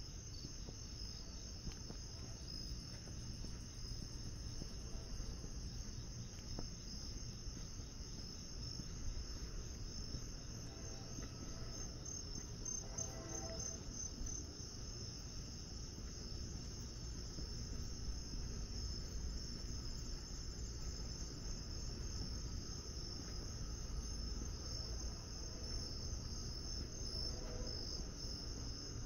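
Night insects, crickets, chirping steadily as a dense high pulsing trill, over a low rumble.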